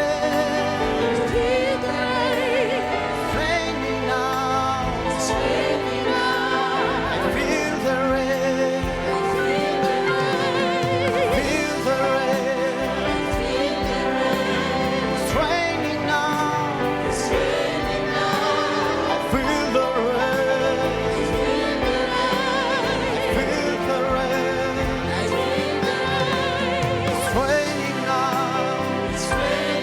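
A gospel song: singing voices with vibrato over a full instrumental backing.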